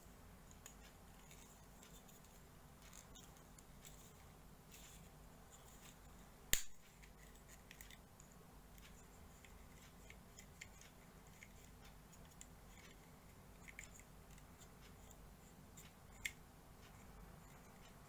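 Hard plastic model-kit parts clicking as they are pressed together, with faint handling ticks; one sharp snap about six and a half seconds in and a smaller click about sixteen seconds in.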